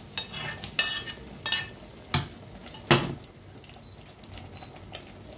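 A spoon scraping and knocking against a cooking pan, with half a dozen sharp metal clinks, the loudest about three seconds in. A faint sizzle of cooking food runs underneath, as cooked chanterelle mushrooms are transferred into the tomato sauce.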